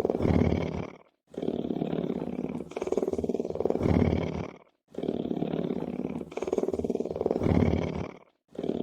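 A lion's deep, rumbling purr, pulsing rapidly. It comes in stretches of about three and a half seconds, each swelling louder near its end and broken by a brief silence, repeating evenly as if looped.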